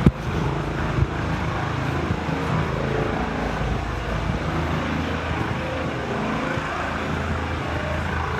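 Steady low running noise of a car, with a sharp click right at the start and another about a second in.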